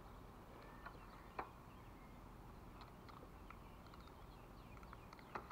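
Near silence: faint outdoor ambience with a few faint clicks, the clearest about a second and a half in.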